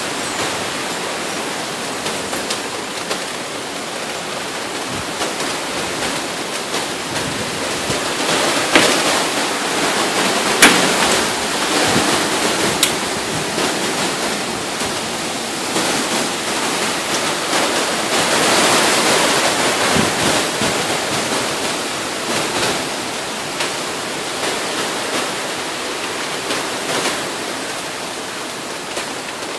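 Steady hiss of wind-driven rain and gusting wind at the start of a hurricane, swelling in strength through the middle, with a few sharp taps.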